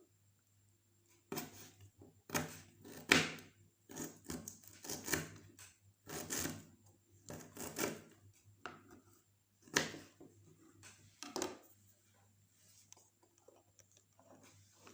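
Knife slicing food on a cutting board: irregular knocks, about one every half second to a second, that stop a few seconds before the end.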